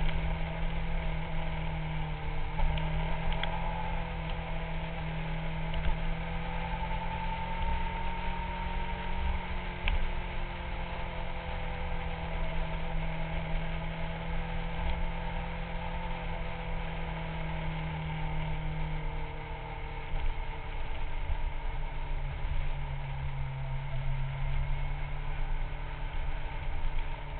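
Kawasaki 600 cc inline-four sportbike engine cruising at a steady pace, with heavy wind rumble on a bike-mounted action camera's microphone. The engine note drops slightly about two-thirds of the way through.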